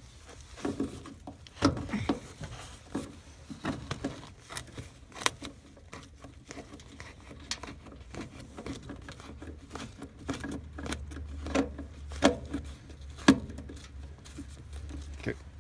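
Irregular clicks and light taps of tools and a wire terminal handled inside a sheet-metal air handler cabinet while the heating element's wiring is fitted onto its terminal lugs.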